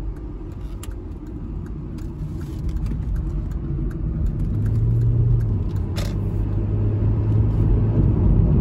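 Inside the cabin of a 2001 Audi A4 2.8 Quattro, the 2.8-litre V6 and tyre rumble grow steadily louder as the car pulls away out of a right turn and picks up speed. A steady low engine hum comes in about halfway through, and there is one sharp click about six seconds in.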